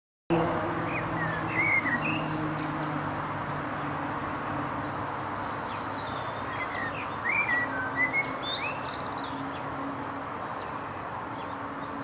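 Male common blackbird singing short fluty phrases, twice, with fast high twittering trills, over a steady low hum.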